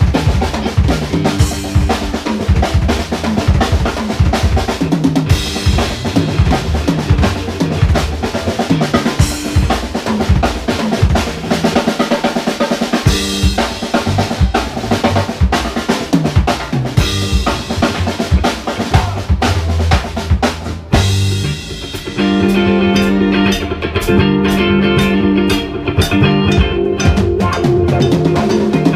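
Live rock band playing an instrumental stretch: a drum kit with kick and snare drives it under electric guitar and keyboard. Near the end the drums drop back and the band holds steady chords cut in an even rhythm.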